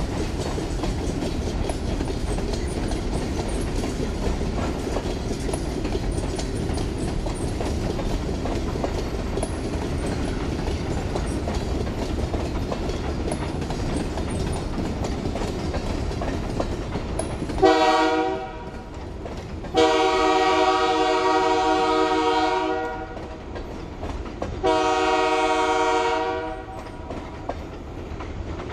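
Freight train rolling steadily with a low rumble and wheel clatter, then the locomotive's air horn: a short blast about 17 seconds in, followed by a long blast of about three seconds and another of about two seconds.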